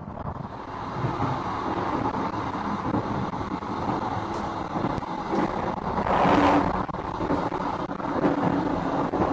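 Running noise of a moving passenger train heard from inside a coach: a steady rumble and rattle, with a brief louder rush about six seconds in.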